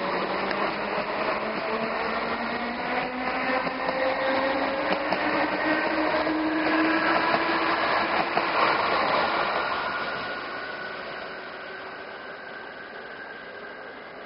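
Iarnród Éireann DART 8300-class electric multiple unit accelerating away from a station, its traction motors whining in several tones that climb slowly over the rumble of the wheels on the rails. It is loudest about two-thirds of the way through, then fades as the train draws off.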